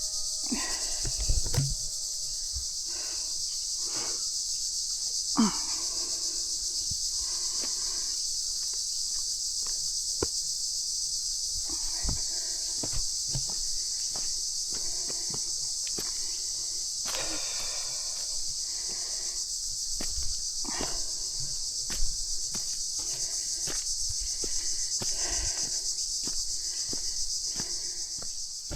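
Steady high-pitched chorus of insects in the bush, with footsteps crunching along a walking track.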